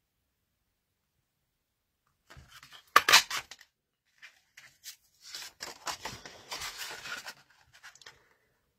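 A handheld polar bear shape punch pressed through stamped cardstock: one sharp crunching snap about three seconds in, then a few seconds of paper rustling and sliding as the sheet is moved in and out of the punch.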